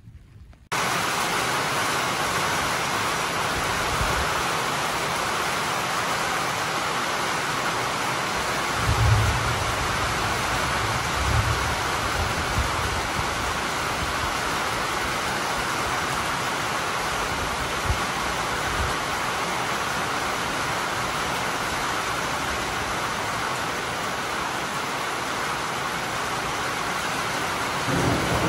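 Thunderstorm: steady rain hiss that starts suddenly just under a second in, with low thunder rumbles about 9 and 11 seconds in.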